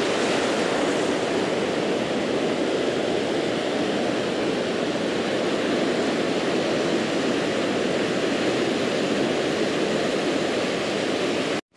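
Ocean surf breaking and washing up a sandy beach, a steady rush of water noise. It cuts off suddenly near the end.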